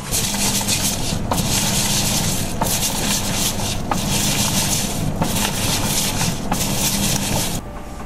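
Coin-operated Sanyo sneaker washer in its wash cycle: rotating brushes scrubbing sneakers in soapy water, a swishing, churning noise that surges in regular pulses a little over a second apart over a steady motor hum. It cuts off shortly before the end.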